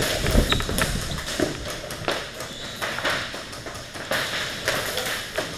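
Footsteps running on a concrete floor, with irregular sharp clicks and knocks.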